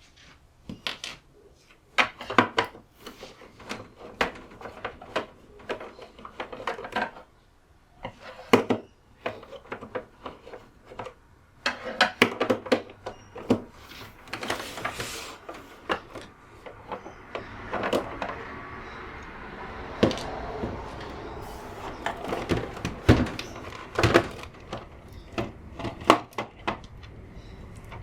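A UPS unit's casing being handled and taken apart: a long run of irregular clicks, knocks and scrapes of plastic and metal parts, with a short rushing scrape about halfway through.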